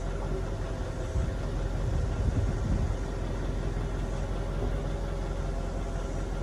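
Mercedes E55 (W211) running at a standstill with a steady, even hum, heard from inside the cabin, while the AirMatic suspension is commanded to raise the front axle.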